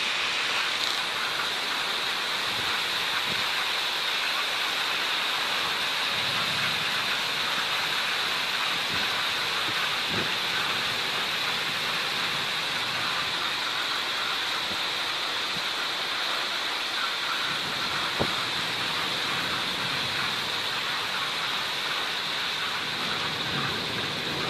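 Heavy cloudburst rain pouring down steadily, with a single sharp click about eighteen seconds in.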